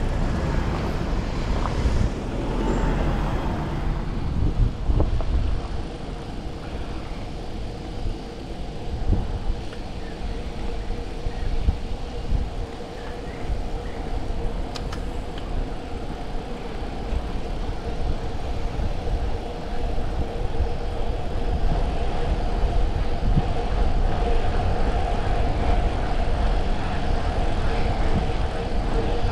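Wind rushing and buffeting the microphone, with road noise from the tyres, as a Brompton folding bike speeds downhill. A steady hum grows louder in the second half.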